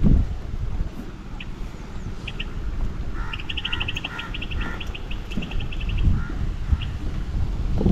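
A bird calling: a fast run of short, high chirps for about three seconds in the middle, with a few lower notes under them and single chirps before and after. Wind rumbles on the microphone throughout.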